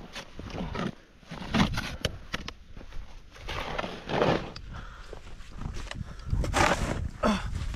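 Footsteps crunching through deep snow, an irregular run of short crackling steps.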